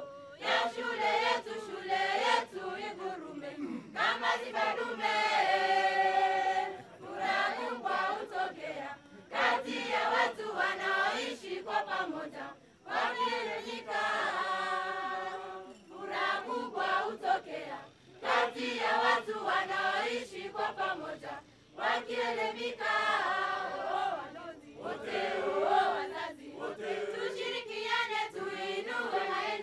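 A students' choir of boys and girls singing together in phrases, several of them ending in long held notes.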